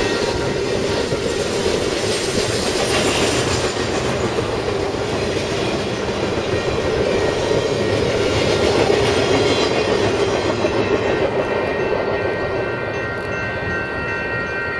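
BNSF intermodal freight train, highway trailers on flatcars, rolling past in a steady rumble. The noise eases a little near the end as the last cars clear.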